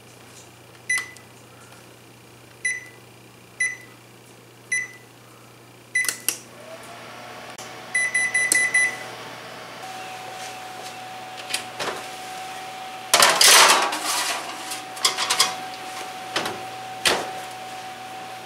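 Electric range's touch control panel beeping as its buttons are pressed: five single high beeps a second or so apart, then a quick run of about six beeps as baking at 325 is set. A steady hum then sets in, and the oven door is handled with several knocks and a loud clatter about two-thirds of the way through.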